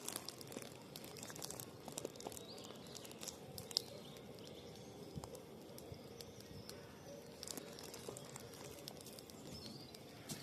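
Wood campfire crackling: irregular sharp pops and snaps over a faint steady rush of burning.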